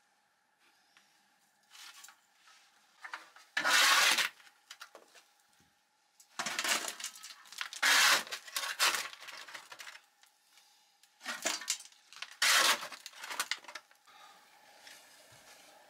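Hand brush sweeping plaster and brick debris, in short scraping strokes that come in several bursts with quiet gaps between them.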